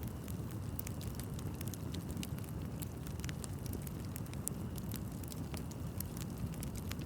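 Bonfire of burning wood crackling steadily: a low rumble of flames with frequent sharp pops and snaps scattered throughout.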